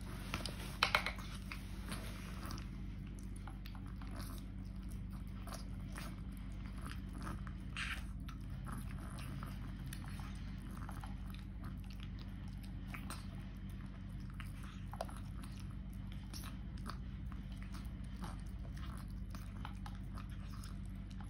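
Small kitten eating greedily from a plastic bowl: a fast, continuous run of chewing and biting clicks over a steady low hum, with a few louder clicks about a second in.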